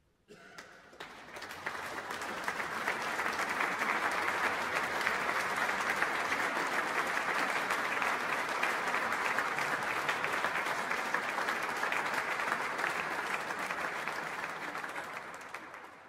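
Concert audience applauding: clapping starts suddenly after a silence, swells over the first couple of seconds, holds steady, and fades out near the end.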